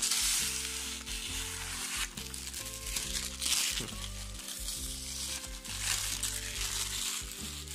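Protective plastic film being peeled off a new LG monitor's glossy surfaces, a crackling hiss that swells and fades as each strip comes away. Background music with low sustained notes plays under it.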